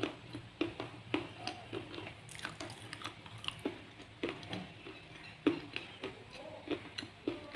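A person chewing slate pencil pieces with sharp, irregular crunches, about one to two a second.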